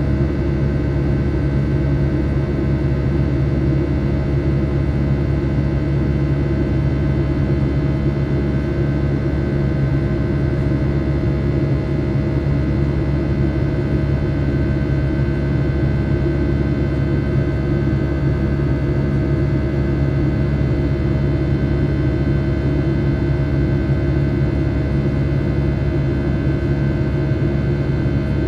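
Boeing 757-300's Rolls-Royce RB211 jet engines heard from inside the cabin over the wing during the climb after takeoff. They make a steady, loud drone with a buzz of many steady tones layered over it.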